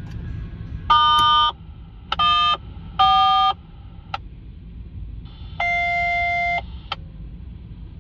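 Locomotive air horn sounding four blasts of a multi-note chord, the last one the longest, over a steady low rumble.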